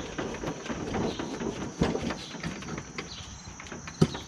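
Clicks and knocks of metal parts being handled as a rear wheel is fitted onto a lawn tractor's axle, with a sharp knock about four seconds in.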